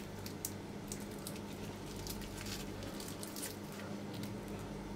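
Crisp pan-fried yufka pastry of a meat-filled çiğ börek crackling as it is torn apart by hand: a run of small irregular crunches over a low steady hum.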